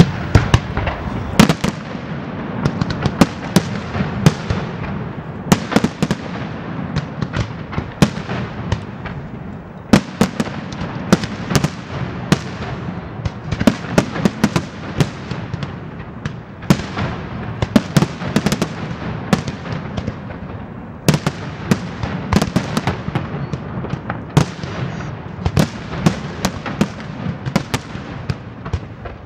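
Aerial firework shells bursting in rapid succession in a large fireworks display: sharp bangs come several times a second over a continuous dense rumble and crackle.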